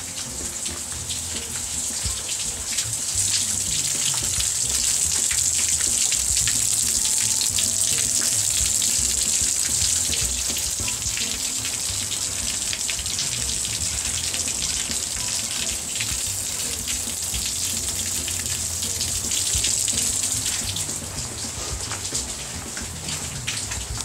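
Rain falling, a steady hiss made of many fine drop ticks. It swells a couple of seconds in, holds, and eases again near the end.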